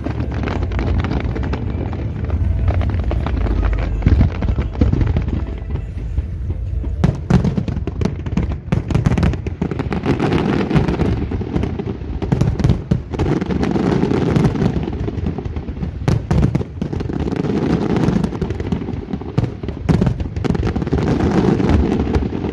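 Fireworks display: a dense, continuous barrage of bangs and crackling bursts over a steady low rumble, growing thicker about a third of the way in.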